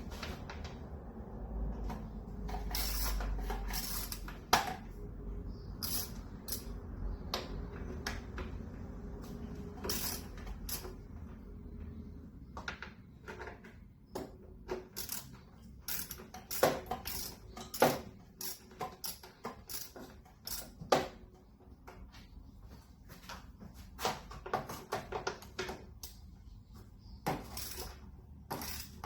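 Irregular metallic clicks and clinks of a 10 mm socket wrench working the bolts on a pool pump's housing, with a duller rumbling scrape in the first few seconds.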